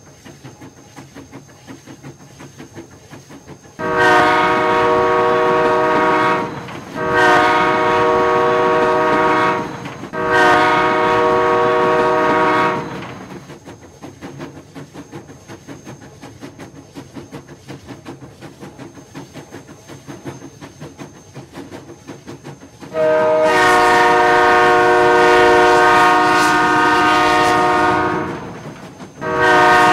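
Train horn sounding a chord: three separate blasts of two to three seconds each, which signal that the train is backing up. After a stretch of fainter low rumbling, one long blast of about six seconds follows, and another begins near the end.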